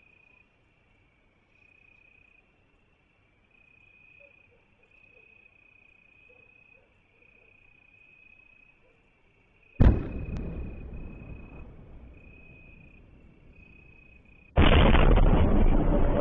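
Crickets chirping in a steady pulsing trill, then about ten seconds in a single loud explosion from a strike, a sharp blast that rumbles away over several seconds. Near the end a loud, steady rush of noise starts abruptly.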